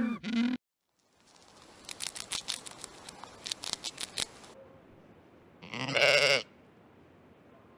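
A penguin's braying call cuts off just after the start. Then a pet rat gnaws and chews its food in quick crunchy clicks for about two and a half seconds. A sheep then bleats once, loudly, about six seconds in.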